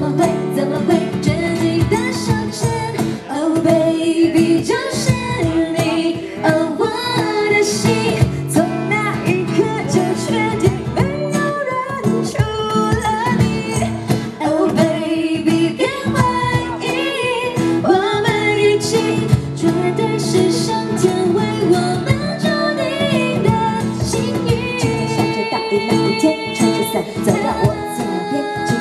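Two women singing a Mandarin pop song live into microphones over instrumental accompaniment.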